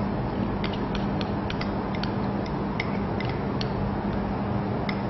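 Soft, irregular clicks and small wet sounds as a beaten egg and tapioca-starch mixture is worked through a wet muslin cloth into a bowl, over a steady background hum and hiss.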